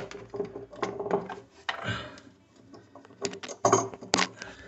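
Light clicks and metallic clinks of a small metal nut and washer being handled and fitted onto a faucet's underside by hand, with a few sharper clicks about three to four seconds in.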